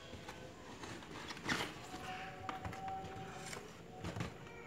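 Cardboard shoe box being handled and its lid lifted off: a few soft knocks and scrapes of cardboard, the loudest about a second and a half in.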